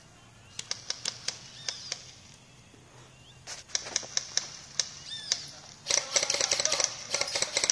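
Airsoft guns firing: scattered single clicking shots, then a rapid string of shots starting about six seconds in.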